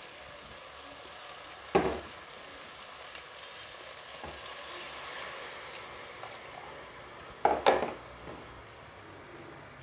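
Masala-coated mutton sizzling in hot oil in an aluminium pressure cooker as water is poured in, the stage where water goes in after the meat has fried in the oil. A sharp clank about two seconds in and two more in quick succession near the end.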